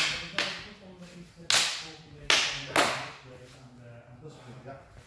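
Klewang sabres clashing in cuts and parries: a run of sharp clacks with hall echo, five strikes, the loudest three coming between about a second and a half and three seconds in.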